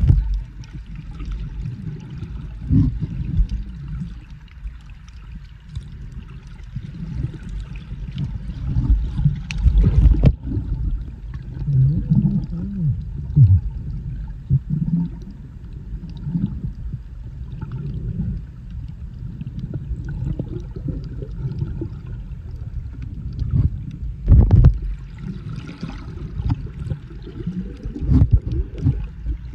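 Muffled underwater sound heard through a submerged camera: a steady low rumble of water moving over the housing, with a few louder knocks about ten seconds in and again near twenty-five seconds.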